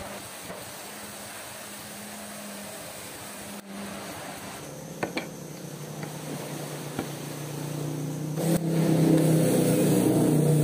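Cordless drill motor running as it bores into pallet-wood slats, with a few light knocks of wood being handled. The drill runs loudest near the end, a steady whine that stops shortly after.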